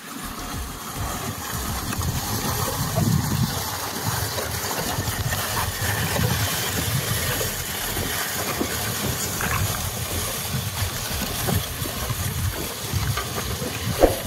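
Hand-pushed four-row onion seeder rolling along a soil bed, its roller and seed units rattling as it is pushed, over a steady low rumble. A single sharp knock near the end.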